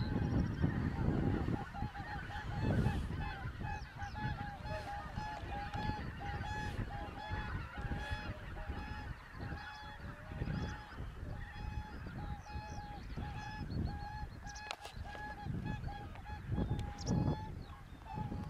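A large flock of wild geese calling continuously, many short honks overlapping in an unbroken chorus. A low rumble surges and fades underneath.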